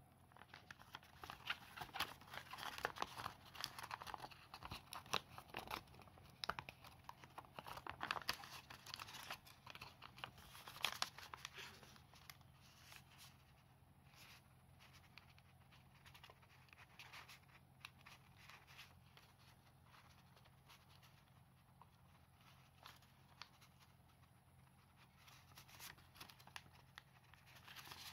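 A sheet of origami paper rustling and crinkling as it is folded and pinched into creases by hand. The crackling is busiest over the first dozen seconds, then softer and sparser, and picks up again near the end.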